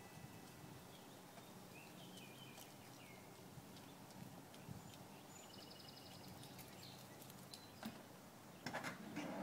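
Quiet outdoor background with a few faint, short bird chirps scattered through it. A brief rustling, scuffing noise with a few clicks comes near the end.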